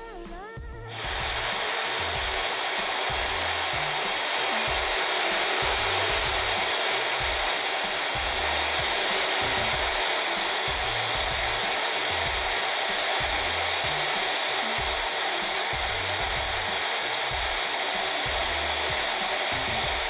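Ella Bella ionic hair dryer switched on about a second in, its fan then running with a steady, even rushing blow.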